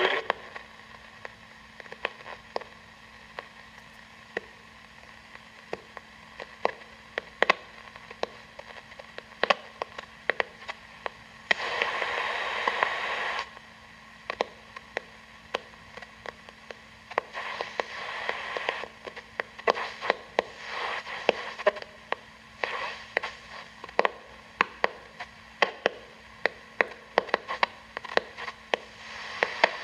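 Panasonic RF-562D portable radio tuned between stations on a band scan, giving static: hiss with frequent sharp crackles and a low steady hum. A louder rush of hiss swells for about two seconds around twelve seconds in, with weaker rushes later.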